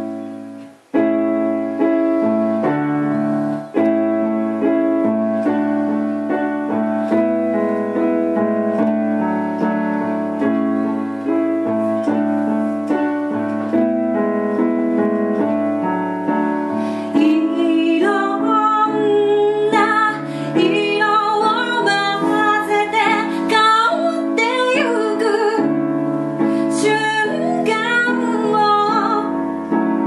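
Piano chords played on a Roland JUNO-G keyboard, with a short break about a second in; about halfway through a woman's singing voice joins the keyboard.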